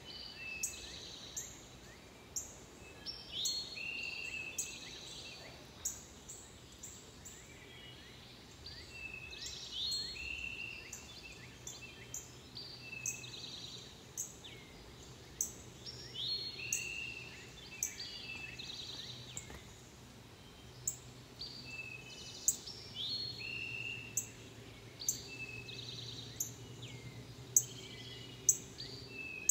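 Wild songbirds singing and calling, with overlapping chirps and short downward-sliding notes, and a sharp chip or click recurring about once a second.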